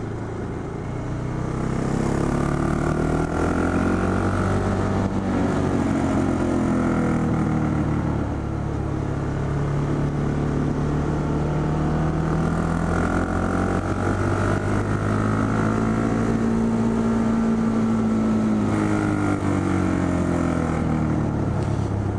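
A 2012 KTM 690 Duke's single-cylinder engine under way, its note rising and falling several times as the rider accelerates and eases off through the bends, over a steady rush of wind noise.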